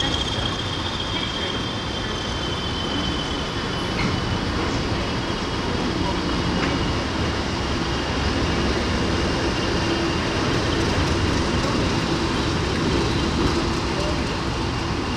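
A Class 20 and a Class 37 diesel locomotive running as they pull out of the station, a steady engine sound with a high whine that slowly drifts a little lower.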